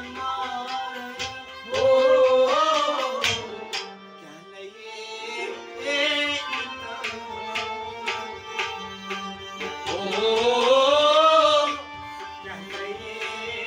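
A man singing with harmonium accompaniment and regular hand-drum strokes. Sung phrases come about two seconds in and again near ten seconds, with held harmonium notes and drumming between them.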